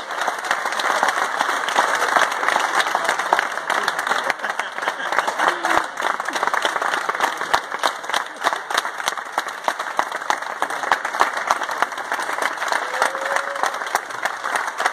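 Crowd applauding: many people clapping steadily and continuously.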